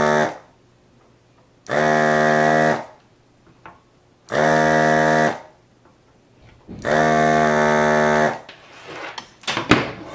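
Electric desoldering gun's vacuum pump buzzing in steady bursts of about a second, once per pin, sucking molten solder from the four pins of a 5 MHz crystal oscillator: one burst ending just at the start, then three more about 2.5 s apart. A few clicks and knocks near the end as the circuit board is handled.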